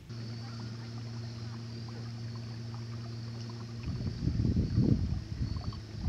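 A kayak's motor running with a steady, even hum for about four seconds, then cutting off. Irregular low rumbling and knocks follow.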